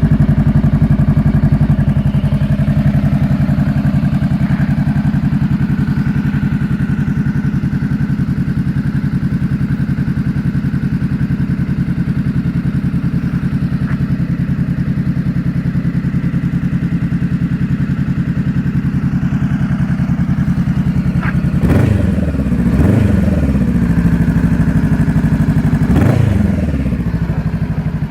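2015 Honda CBR500R's parallel-twin engine idling steadily through a freshly fitted Coffman's slip-on exhaust, then revved in a few short throttle blips, rising and falling, about three-quarters of the way through.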